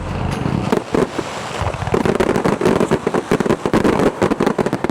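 Fireworks display going off: a rapid, dense run of bangs and crackles, many per second, thickening about two seconds in.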